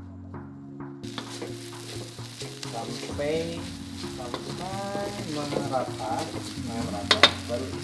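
Noodles sizzling as they stir-fry in a wok, a wooden spatula scraping and tossing them; the sizzle comes in about a second in. Near the end the spatula strikes the wok twice with sharp clacks.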